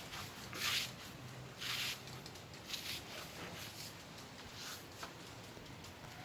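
HO scale model train running, with soft hissing bursts about once a second over a faint low hum.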